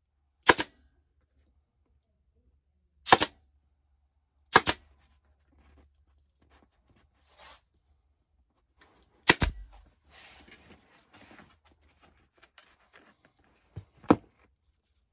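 Pneumatic staple gun firing staples into a mower seat cover: five sharp, quick cracks at uneven intervals. Between the shots there is a soft rustling and crinkling of the cover material being handled.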